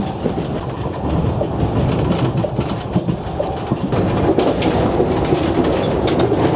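Cab noise of a Z 5300 electric multiple unit running along the line: a steady rumble of wheels on rails with small clicks and rattles. It grows louder about four seconds in as the train runs onto a bridge.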